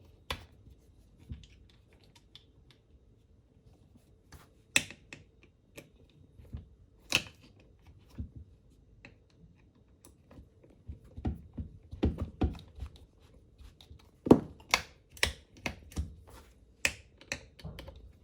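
Sharp clicks and knocks of hard plastic sprayer parts being handled and fitted together during reassembly of a handheld airless paint sprayer, scattered at first and coming more often in the second half.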